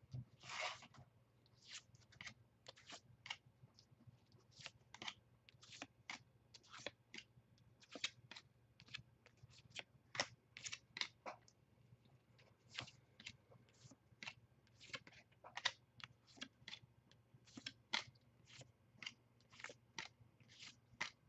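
Bowman baseball cards being flipped through one at a time, each card sliding off the stack with a short, soft papery swish, about one or two a second. A longer rustle about half a second in.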